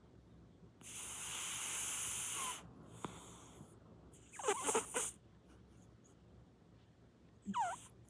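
Sleeping cat snoring: a long hissing breath, then a louder rasping snort, and another short snort near the end, in a rhythm of about one breath every three seconds.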